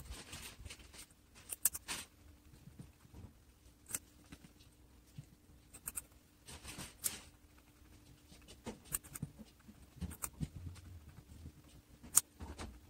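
Guinea pig crunching and chewing a chunk of vegetable: irregular crisp bites and clicks, a few sharper crunches standing out, sped up.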